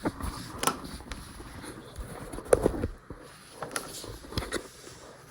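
Scattered knocks and clicks of hands handling material and tools, the loudest about two and a half seconds in.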